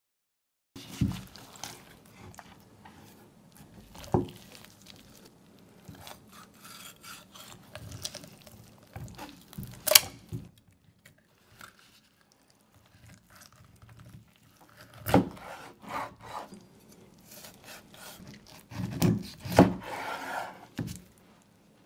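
Chef's knife cutting up a whole raw chicken on a wooden cutting board: quiet rubbing and scraping as the blade slices through skin and meat, broken by a few sharp knocks and cracks as the leg is worked off at the thigh joint and the blade meets the board.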